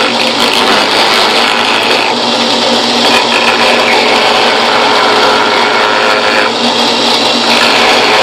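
Harbor Freight drill press running a router bit, the spinning bit cutting into the edge of a wooden spoon blank fed by hand. The steady motor-and-cutting noise changes in strength a few times as the blank is moved against the bit.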